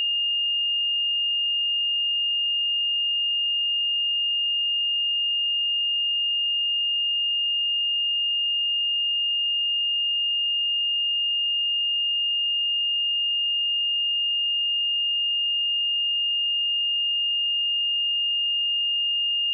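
A steady, unbroken 2827 Hz sine-wave test tone: one pure, high-pitched note held at constant pitch and loudness.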